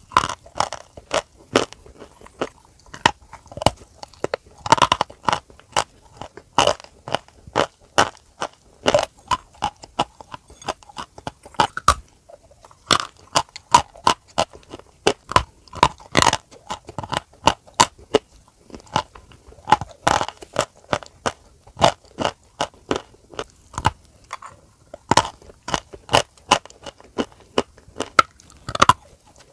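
Close-miked biting and chewing of dry white chalky lumps: sharp, brittle crunches in irregular clusters, with a short pause about twelve seconds in.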